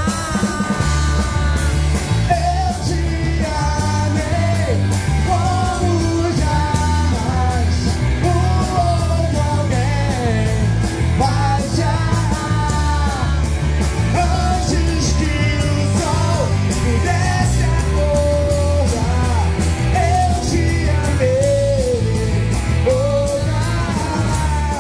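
Live rock band playing: a male singer over electric guitar, bass guitar and drums, with steady driving bass notes and regular cymbal hits.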